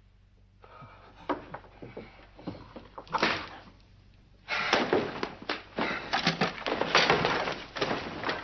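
Heavy drapes grabbed and pulled aside: dense, loud rustling and scraping of the cloth, starting about halfway in, after a few scattered knocks.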